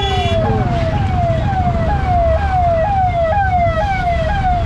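Ambulance siren sounding close by in a fast repeating pattern: each note jumps up and glides down, about two a second, over a low traffic rumble.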